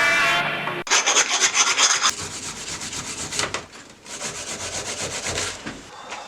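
Music ends about a second in, then rapid back-and-forth scraping strokes by hand, a rough rasping rub repeated many times a second in bouts with short pauses.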